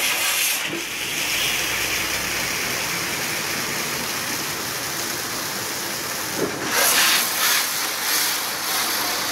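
Water spraying hard from a hose nozzle onto a car's rear glass and body: a steady hiss that swells louder for a moment about seven seconds in.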